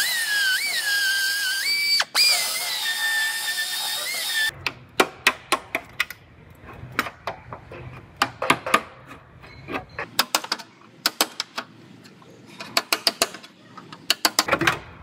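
High-pitched whine of a belt file sander on sheet metal, its pitch dipping and recovering as it is pressed in, stopping about four and a half seconds in. Then a hammer striking a chisel against the quarter-panel metal in quick runs of sharp metallic taps.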